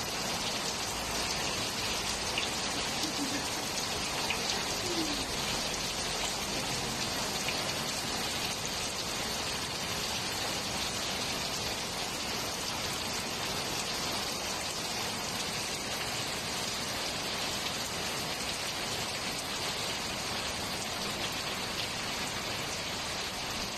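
Steady rain falling on a flat rooftop, an even hiss of drops with no letup.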